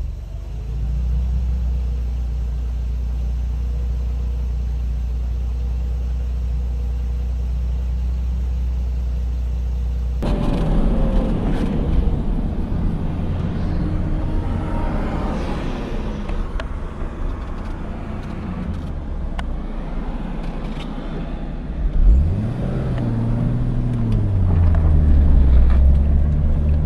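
Nissan Silvia S13's engine idling steadily. About ten seconds in the sound changes abruptly to the engine running with more noise around it, and a little over twenty seconds in it is revved up and back down once.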